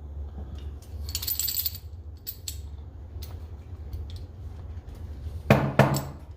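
Small metal parts and tools of a Coleman 530 pocket stove clinking and tapping during disassembly, with a brief scrape about a second in and two loud knocks near the end, over a steady low hum.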